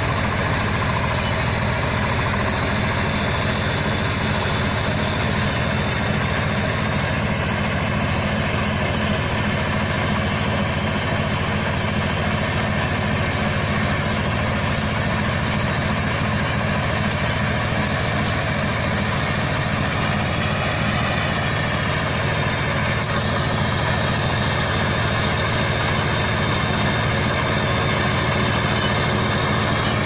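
Mini crawler-track rice combine harvester running steadily as it cuts and threshes standing rice: an even, unchanging engine and machinery drone.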